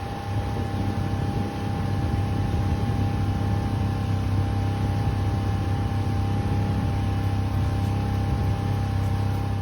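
Outboard motor of a small motorboat running steadily under way, with a constant low hum and a steady whine over a rush of wind and water noise.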